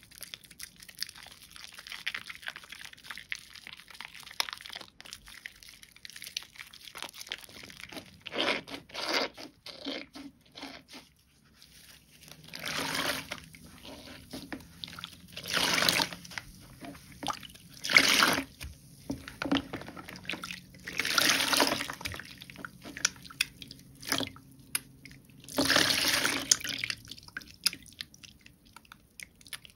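Soaked, mushy Bio Mio bio-soap being squeezed and lathered into thick foam. A fine wet crackle runs under a series of louder squelching squishes, each lasting a second or two.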